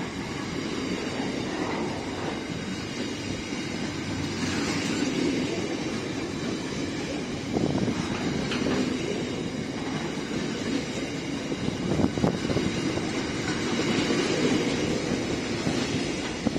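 Container freight train passing close by: a continuous rumble of wagons and wheels on the rails, with a few sharper knocks as the wagons go past.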